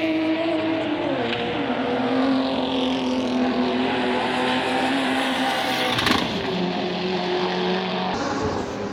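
Race car engine running hard at steady revs; its pitch falls about a second in, then holds. A short sharp crack comes about six seconds in.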